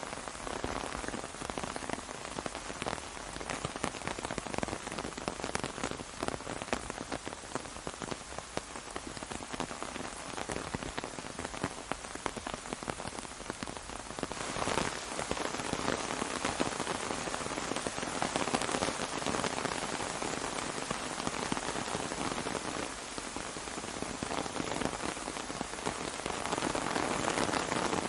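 Rain falling on an umbrella: a dense, steady patter of many drops, growing a little heavier about halfway through.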